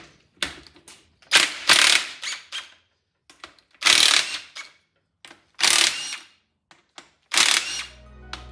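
Hand ratchet wrench loosening the bearing-cap bolts on a Nissan VG30DETT engine's bottom end: five short bursts of ratcheting about one to two seconds apart. Music comes in near the end.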